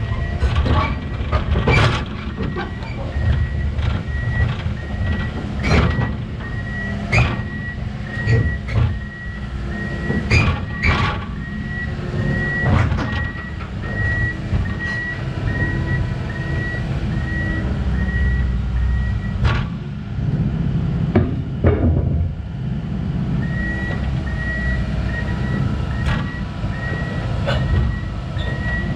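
Komatsu 170 excavator tracking up onto a float trailer: its diesel engine runs under load while the steel tracks clank and knock against the trailer deck. A beeping alarm repeats about twice a second, stopping for a few seconds about three quarters of the way through.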